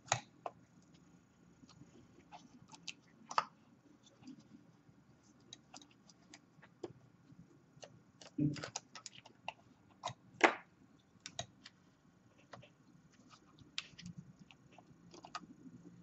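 Scattered small clicks and taps of an Asus UX303U laptop's internal parts being handled and pressed into place in the open chassis. A few louder knocks stand out, near the start and around the middle.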